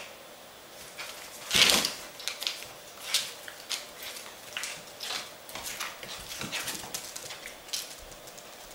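Small pets moving and scuffling: a loud breathy huff about a second and a half in, then a run of short clicks and rustles.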